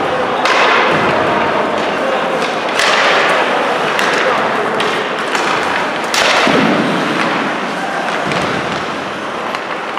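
Ice hockey play in a rink: skates scraping the ice, stick and puck clacks, and sudden thumps against the boards about half a second, three seconds and six seconds in, with indistinct shouting voices.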